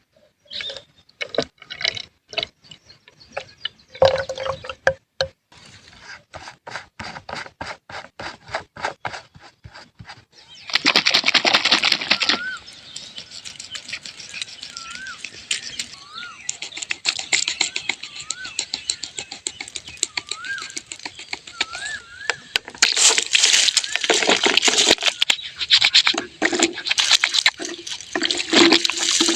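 A quick run of sharp clicks or taps for about ten seconds, then water pouring and splashing in loud waves, with a few faint short chirps.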